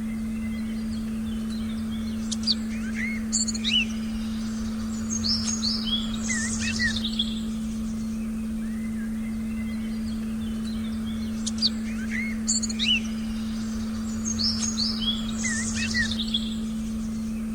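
Forest birdsong: short chirps and quick whistled notes, heard as two matching runs of calls separated by a pause, as if the recording loops. Under it runs a steady low synthesized tone.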